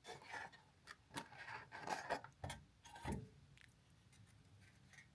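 Faint rustling and rubbing with a few light clicks, the sound of small things being handled, over the first three seconds or so.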